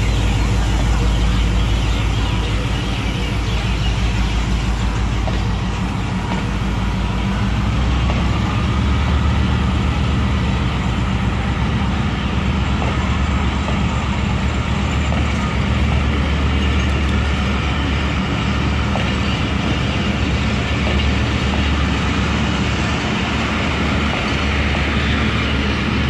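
Diesel locomotive engine running with a steady low drone as a passenger train rolls slowly along the track, with wheel and coach rumble. The drone steps up slightly in pitch after about eight seconds.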